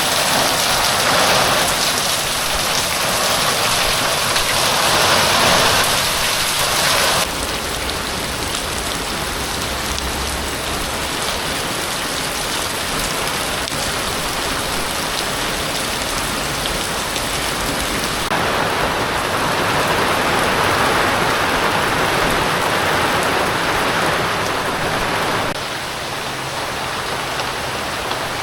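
Heavy rain falling in a steady, loud hiss. Its level shifts abruptly three times.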